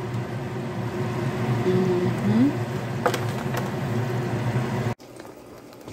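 Range hood exhaust fan running over the stove with a steady hum, with two light clicks a little after three seconds in. The sound drops off abruptly about five seconds in.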